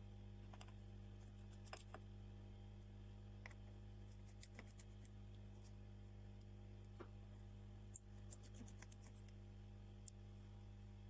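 Faint, scattered small clicks and taps of repair tools working on a phone's parts, with a sharper click about eight seconds in, over a steady low electrical hum.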